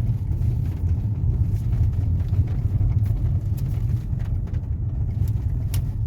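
Ford Fusion rolling down a rough, potholed street with the brake lightly applied, heard from inside the cabin: a steady low road rumble with only a few faint ticks. The knocking is silenced by the braking, the sign of play in the driver-side brake caliper, not a steering-box or suspension fault.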